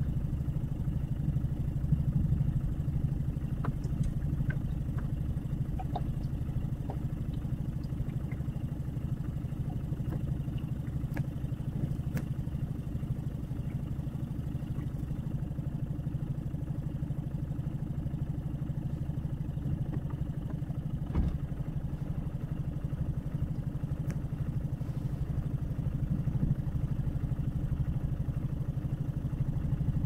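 A boat engine running steadily at low speed, a low, even hum.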